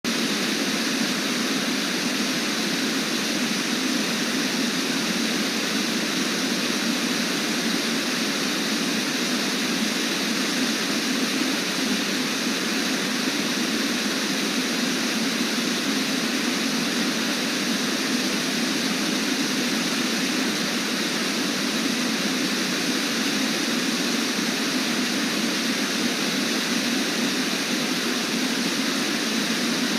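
Brooks Falls, a waterfall on the Brooks River, rushing in a steady, unbroken roar of falling water.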